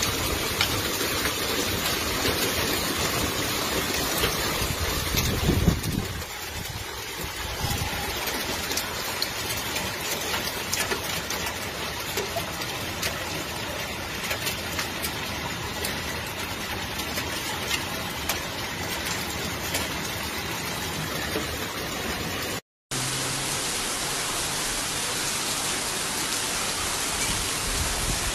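Steady rushing water noise of floodwater, with a louder low rumble about five seconds in and a brief gap of silence about three quarters through.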